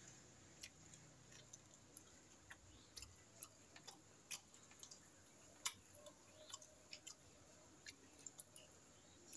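Faint, irregular clicks and taps of a meal being eaten, a spoon touching a plate and fingers working rice, with some chewing, over near-quiet room tone.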